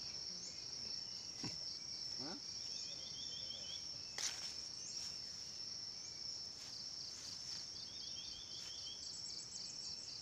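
Steady high-pitched insect chorus. Twice, a lower chirping in short rapid runs breaks in over it. A sharp knock about four seconds in, with a few fainter clicks and rustles from handling and walking.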